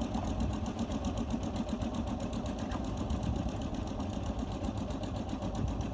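A river boat's engine running steadily, with a fast, even chugging.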